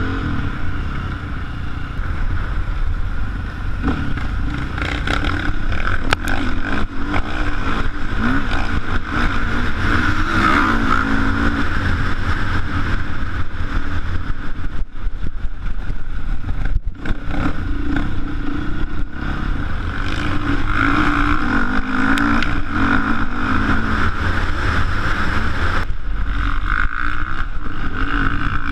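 KTM off-road motorcycle engine running under changing throttle, its pitch rising and falling, with a couple of brief dips a little past halfway.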